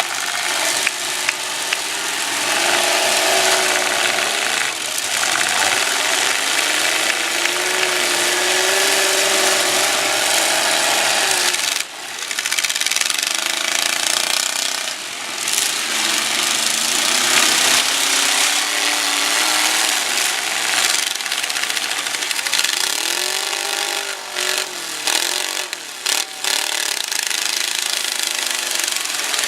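Demolition derby pickup trucks with their engines revving up and down, pitch rising and falling repeatedly, over a continuous rough noise of grinding, scraping metal.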